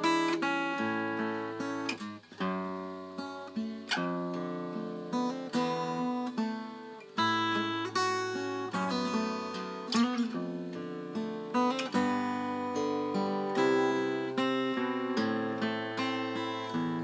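Acoustic guitar played solo, with plucked and strummed chords left to ring, a new chord or note about every second.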